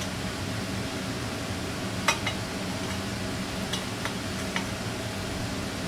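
A ratchet turning a thread-chasing tap by hand in a damaged bolt hole of an aluminium intake manifold gives a few faint, scattered metal clicks over a steady shop hum.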